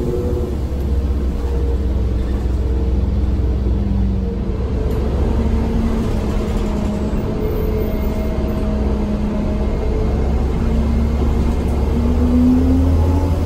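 Orion VII city bus running with a steady low rumble, its engine note wandering up and down in pitch and rising briefly near the end.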